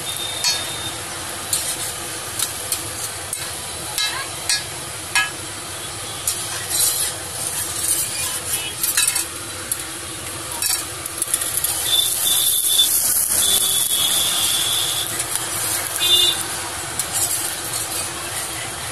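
Sandwiches sizzling on a large flat street-food griddle, a steady hiss that swells a little past the middle, with scattered clicks and scrapes of a metal spatula on the griddle. A brief high steady tone sounds a little past the middle.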